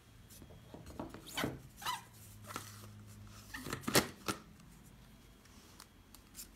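Light plastic clicks and scrapes from a Nutri Ninja blender cup and blade assembly being handled and screwed together, with a sharper click about four seconds in.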